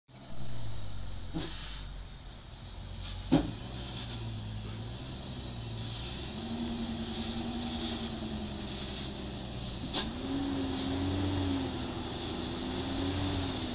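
Hino truck's diesel engine running as it comes slowly down a steep dirt track, a low wavering engine note that grows slightly louder as the truck approaches, over a steady hiss. Two sharp knocks, one about three seconds in and one about ten seconds in.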